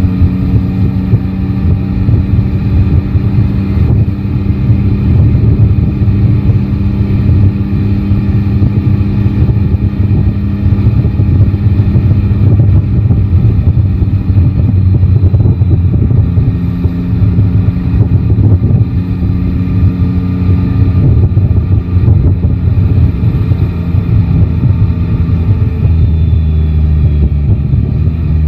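Yamaha Tracer 9 GT motorcycle's inline three-cylinder engine running at steady riding revs, its pitch holding mostly level and dropping a little near the end. Heavy wind buffeting on the microphone rumbles under it throughout.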